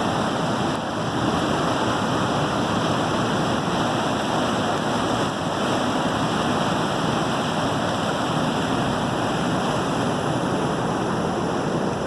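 Water rushing and splashing at a waterwheel, a steady, loud, unbroken rush.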